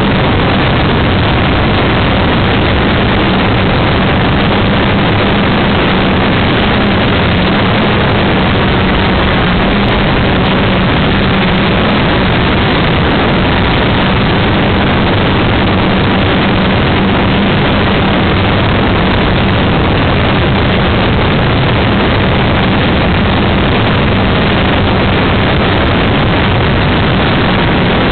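Quadcopter's four electric motors and propellers heard from a camera mounted on the craft: a loud, steady whir and rush with a low hum underneath.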